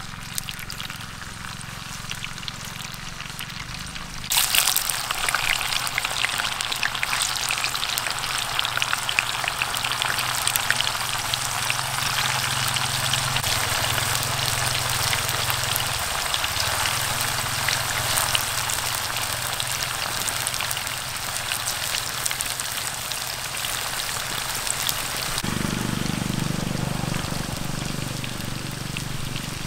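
Tofu cubes deep-frying in hot oil in a pan: a fainter sizzle at first, then a dense crackling sizzle that starts suddenly about four seconds in and keeps up.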